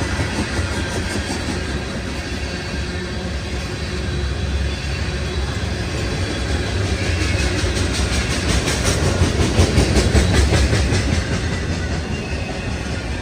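Freight train rolling past, its wheels rumbling and clacking over the rail joints. A quick run of clicks from about seven to eleven seconds in is the loudest part.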